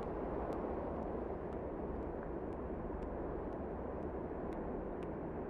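A steady, low rumbling noise with faint ticks about twice a second.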